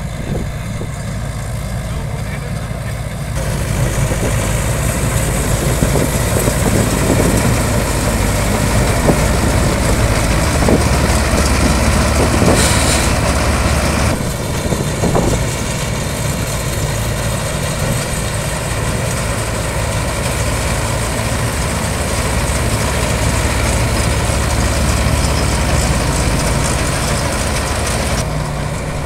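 Balkar B-525 tractor-mounted combine harvester running at full speed while cutting paddy: a steady engine drone under the whir and rattle of the harvesting machinery. It gets much louder about three seconds in as the machine comes close.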